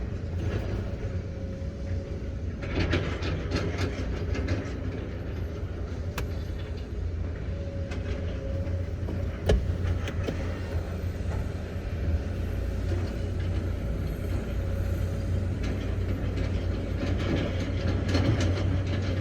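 SANY excavator's diesel engine running steadily with a hydraulic whine, overlaid by rattling metallic clatter from the tracks and bucket and a couple of sharp knocks.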